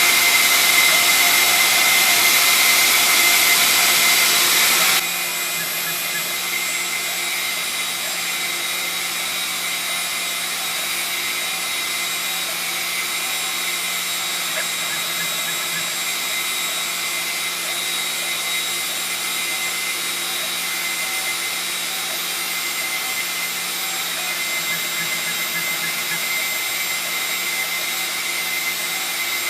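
CNC router spindle turning a 1/8 inch two-flute end mill at 10,000 RPM, cutting a pocket in pine, with a shop vacuum running alongside: a steady whine over a steady rush of air. A loud hiss cuts out suddenly about five seconds in, leaving the steadier, quieter whine and rush.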